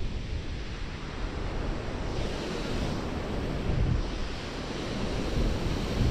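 Steady rush of water churning through a canal spillway, with wind buffeting the microphone.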